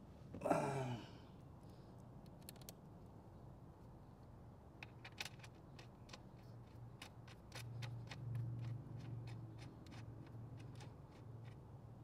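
A short falling sigh from a man about half a second in, then scattered light clicks and rustles as hands handle the battery's hold-down strap and the red positive cable, over a faint low steady hum.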